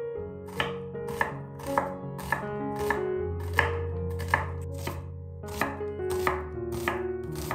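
Chef's knife slicing a peeled onion on a wooden cutting board: a sharp tap of the blade striking the board roughly twice a second.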